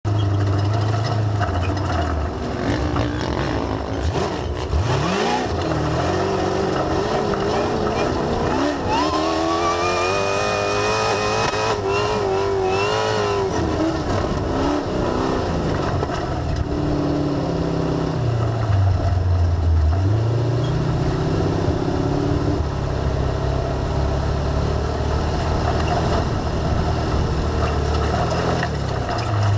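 Sand rail engine running hard as the buggy drives over the dunes, revving up and down: the pitch climbs about five seconds in and again around ten seconds in, and drops and recovers later on.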